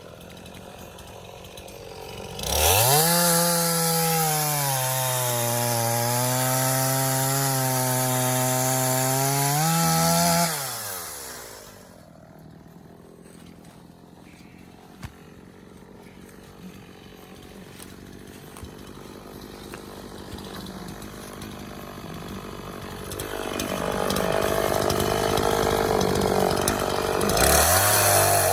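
Echo gasoline two-stroke chainsaw idling, then revved to full throttle about two seconds in and cutting through an oak log, its pitch sagging under load. About eight seconds later it drops back to idle, and it revs up again near the end.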